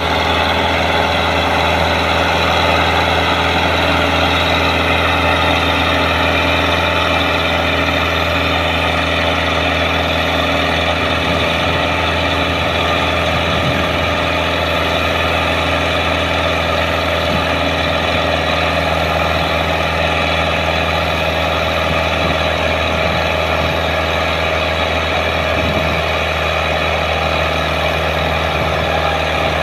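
Diesel engine of a Russian-made farm tractor running hard under heavy load as it drags a loaded trailer through soft field, a steady deep drone that sags slowly in pitch as the engine lugs. It is pouring black exhaust smoke, the sign of an engine labouring and over-fuelling under the strain.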